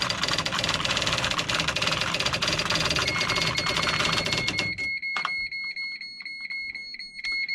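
IBM Wheelwriter 30 daisy wheel electronic typewriter printing rapidly, a dense clatter that stops a little before five seconds in. From about three seconds in, a fast string of high beeps from its spell-assist function, signalling typing mistakes.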